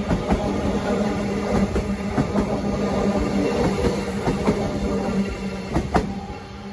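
X'Trapolis electric train running close by and pulling away: a steady hum under a run of sharp clicks from the wheels on the track. It fades near the end as the last carriage passes, with one loud click just before.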